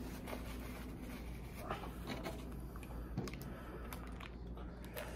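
Scattered rustling and crinkling clicks of a small plastic sauce packet being handled and torn open, over a steady low hum.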